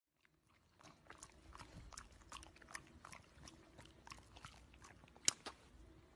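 English bulldog chewing and smacking on a mouthful of treats: a string of short, irregular wet clicks, with one sharper click about five seconds in.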